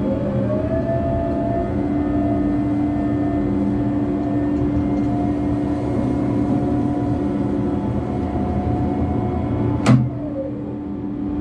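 Heavy diesel engine of a coal-handling crane running under load: it revs up and holds steady, then a sharp click about ten seconds in is followed by the revs dropping back.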